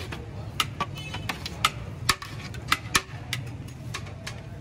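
Metal serving spoons clinking and knocking against large metal biryani pots as rice is scooped out. The clinks are sharp and irregular, about two a second, each with a brief metallic ring, over a steady low hum.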